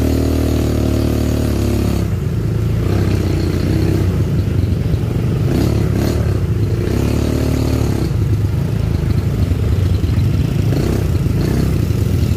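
All-terrain vehicle (ATV) engine running under way, its pitch rising and falling with the throttle.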